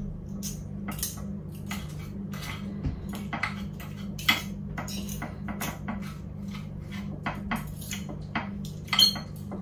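Forks clinking and scraping against a plate while shredding cooked chicken breast, in short irregular clicks with a sharper clink near the end, over a steady low hum.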